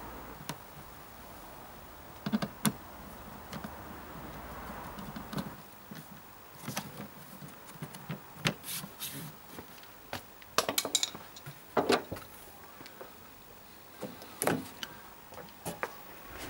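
Scattered light clicks, knocks and rattles of small hard objects being handled, about a dozen separate strikes with short rustles between them.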